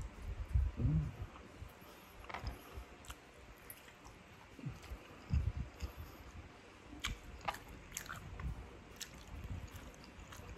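A person chewing a mouthful of soft braised pork adobo and rice, eaten by hand, with scattered small wet mouth clicks.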